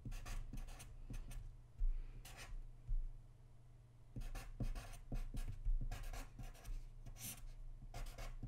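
Black felt-tip marker writing on paper: short, irregular pen strokes, with a brief lull about three seconds in.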